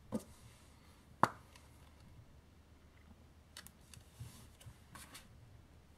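Small clicks and light taps as tiny rhinestone gems are set onto a paper card with a pen-like tool: a sharp click about a second in, then a few faint ticks.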